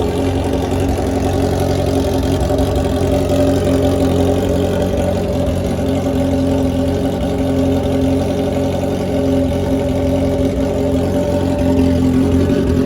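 Honda CB650F motorcycle's inline-four engine idling steadily through a straight-pipe exhaust with no silencer, loud and raw.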